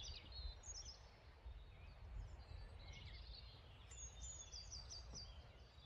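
Faint birdsong: a few short runs of high, quick chirping notes from small birds over a steady low rumble of outdoor background noise.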